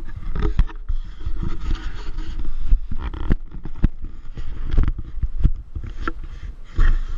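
Gusty rumble on the microphone of a pole-held action camera, with irregular sharp knocks and scrapes as the camera and pole are handled.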